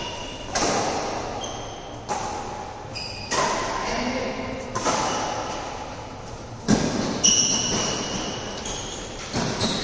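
Badminton rackets striking a shuttlecock in a doubles rally: about seven sharp hits, one every second or so, each ringing out in the echo of a large hall.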